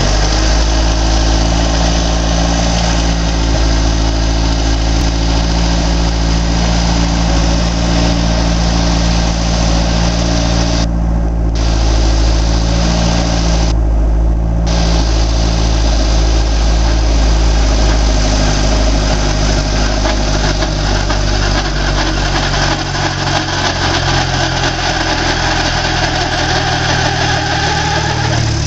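Robinson R22 helicopter's four-cylinder piston engine running steadily during startup, with the two-blade main rotor spinning up. The engine's low note shifts about two thirds of the way through.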